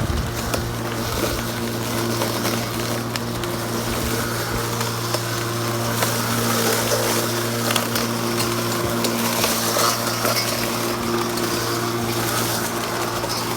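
Bosch CityMower 18 battery lawnmower running steadily, its electric motor giving an even hum under a rustling, crackling noise.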